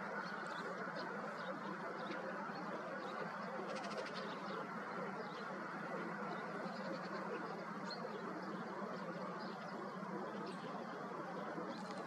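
Steady faint outdoor background hiss with a few faint, short, high bird calls, one a quick series of ticks about four seconds in.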